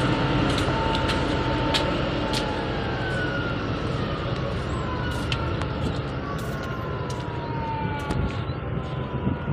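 A boat's engine running steadily, heard from its deck, with wind and water noise and faint whining tones that glide slowly down in pitch through the middle.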